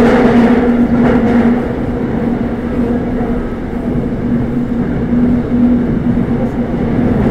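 Seoul Metro Line 5 subway train running between stations: a steady rumble with a steady low hum through it, easing slightly for a few seconds in the middle before building again near the end.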